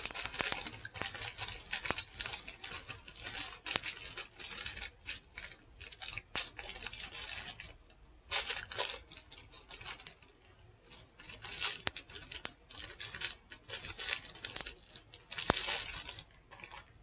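Foil Pop-Tart wrapper being torn open and crinkled by hand, in irregular crackling bursts with a few short pauses.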